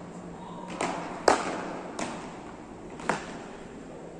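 Beach tennis paddles striking the ball in a rally: four sharp hits, the loudest about a second in, each echoing briefly in a large indoor hall.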